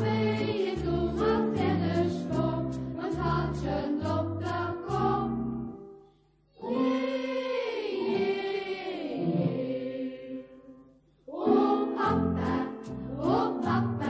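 Choir singing a Luxembourgish song over a bouncing bass accompaniment. About six seconds in the music breaks off briefly, then a slow, sliding sung phrase follows without the bass, and the full song with bass comes back in near the end.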